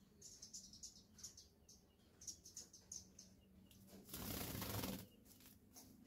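Faint high bird chirps come a few to the second in the first half. About four seconds in, a sooty-headed bulbul flutters its wings loudly for about a second.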